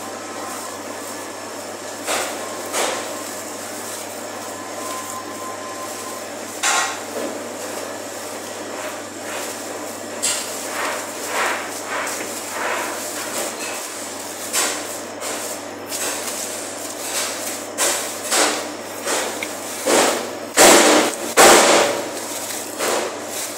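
Butcher's knife cutting and trimming a raw beef topside on a cutting board, with scattered knocks of the blade and meat against the board, the two loudest close together near the end. A steady low hum runs underneath.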